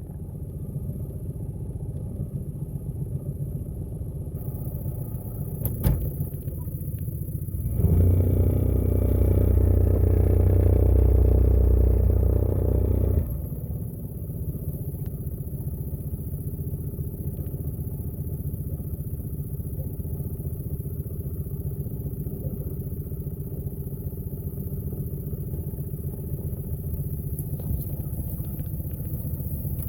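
Boat motor running at low speed. About a quarter of the way in it runs louder for around five seconds, then drops back suddenly to a steady low hum.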